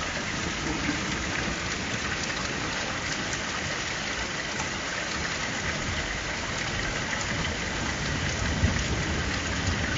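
Steady rain falling and pattering on surfaces during a thunderstorm, with a low rumble of thunder building near the end.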